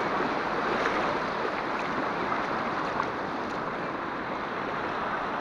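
Muddy floodwater rushing across an overtopped dike road, a steady, even wash of running water.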